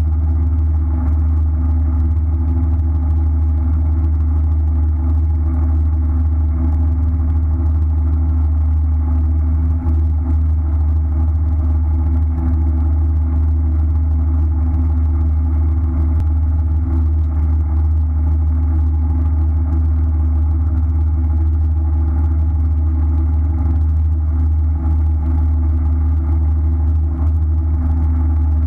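A fishing boat's engine idling: a steady, unchanging low drone.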